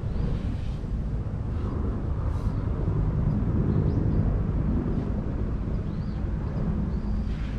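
Steady low rumble of wind buffeting the microphone outdoors, with a few faint high bird chirps now and then.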